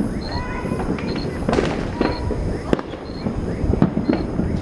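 New Year's fireworks going off: a string of sharp bangs and crackles, about two a second.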